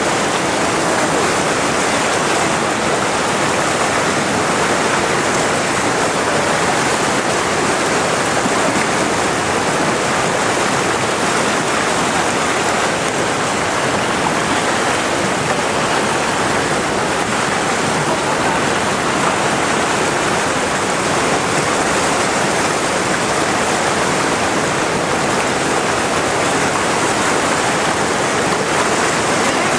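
Steady rush of fast-flowing white water, an even, unbroken noise.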